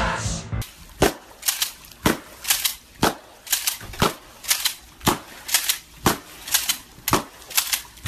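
A string of sharp cracks, about two a second and unevenly spaced, each sudden and short.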